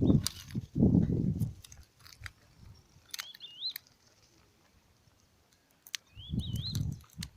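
Two short warbling bird calls, one about three seconds in and another near the end, over scattered clicks. Low muffled rumbles near the start and again near the end are the loudest sounds.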